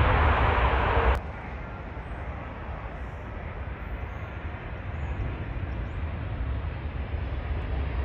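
Loud airliner jet noise that cuts off abruptly about a second in, followed by quieter jet engine noise from a Boeing 777 on final approach and flare, slowly growing louder.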